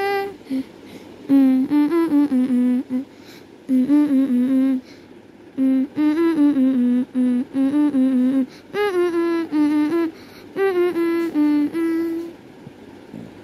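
A voice humming a wordless tune in short phrases with brief pauses between them, stopping about a second before the end.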